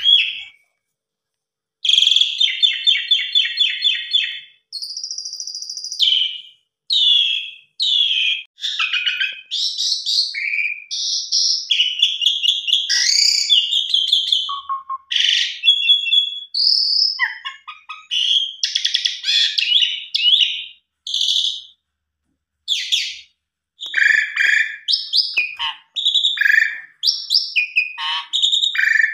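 Javan pied starling (jalak suren) singing a long, varied song: after a short break near the start, a rapid trill, a held high whistle, then a run of changing whistles, chatters and trilled notes, the richly filled song that keepers call 'isian'.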